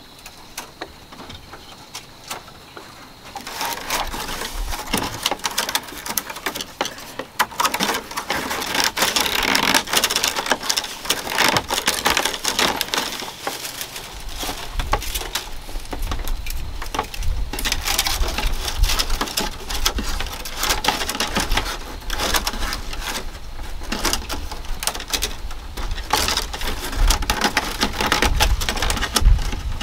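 Thin bamboo strips being woven by hand into a flat mat: a dense, irregular crackling and clicking as the strips are lifted, bent and pushed into place. It starts about three seconds in and grows heavier, with low knocks, from about halfway.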